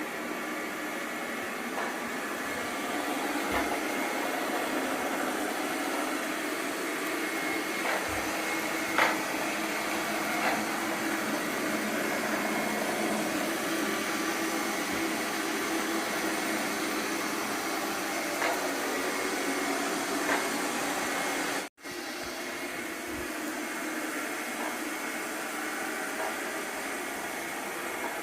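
Light 'N' Easy robot vacuum cleaner running steadily, its motor whine sitting over the noise of the suction, with a few light clicks. The sound cuts out for an instant about 22 seconds in, then picks up again.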